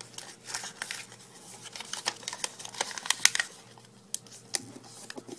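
Origami paper crinkling and crackling as it is squash-folded and creased flat by hand: a run of small, sharp crackles, busiest and loudest in the middle.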